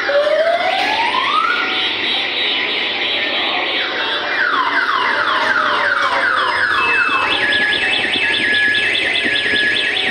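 Electronic siren sound effects from a coin-operated kiddie ride, cycling through patterns like a car alarm. First a rising whoop, then fast high chirps, then repeated falling sweeps at about four a second, and a rapid warble near the end.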